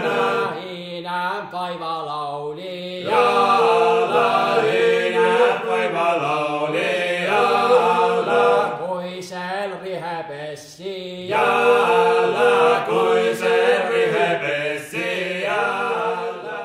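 An Estonian folk song sung in chant-like phrases of a few seconds each, with a steady low tone held underneath.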